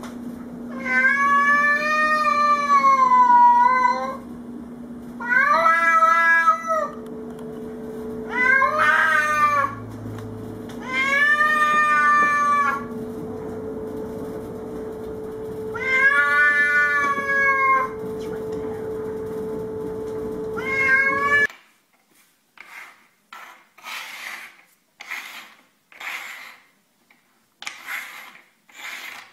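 A cat yowling: six long, drawn-out, wavering calls over a steady low hum. The sound cuts off suddenly and gives way to short rubbing scrapes on a wooden table, about one a second.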